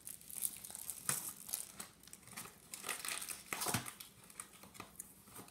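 Foil cookie pack being handled and crinkled, with irregular crackles and a few louder crinkles.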